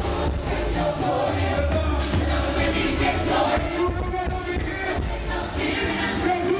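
Live band music played through a loud outdoor PA, with singing into microphones over a heavy bass line.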